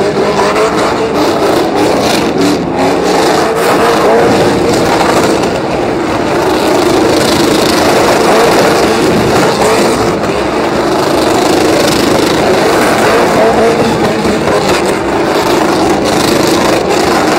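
Pickup trucks doing burnouts: engines held at high revs while the rear tyres spin on the pavement, a loud, steady din with no letup.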